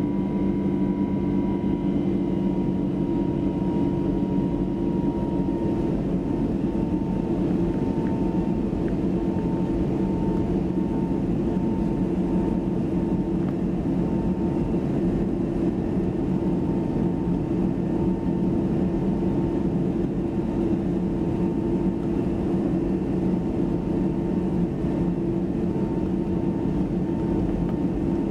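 Airbus A320neo jet engines running, heard inside the passenger cabin as a steady, dense noise with a few steady hum tones through it. A few seconds in, some of the higher tones fade and the pitch settles slightly.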